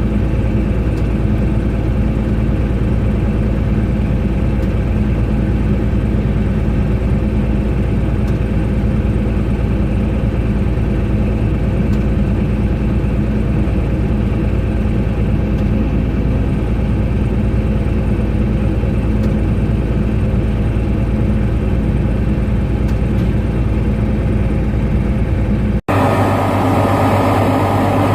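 A truck engine idles steadily, even and unchanging. About 26 seconds in, it cuts off suddenly and a different engine drone with a deeper hum takes over.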